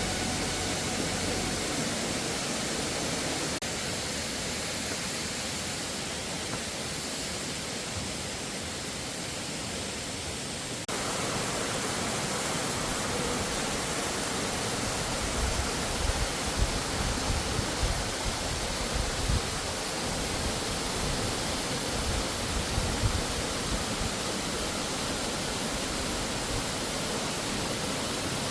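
Waterfall and mountain stream water rushing in a steady, even hiss. The sound steps abruptly in level about 3.5 s and 11 s in, and there are low bumps in the second half.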